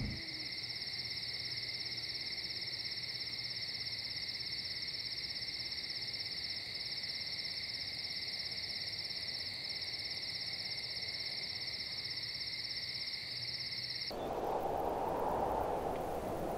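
Insects trilling steadily at a high pitch, with a fine rapid pulse. The trill cuts off suddenly near the end, and a soft rushing noise takes over.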